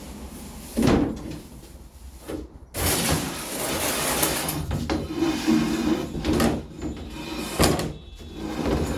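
A knock about a second in, then from about three seconds in a power saw starting and cutting through a 4×8 sheet of board, with sharp spikes in the noise near six and a half and seven and a half seconds.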